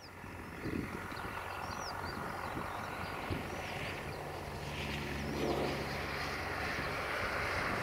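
Distant UTB U650 tractor's four-cylinder diesel engine running steadily as it pulls a disc harrow across a field, growing clearer about halfway through. Small birds chirp repeatedly over it.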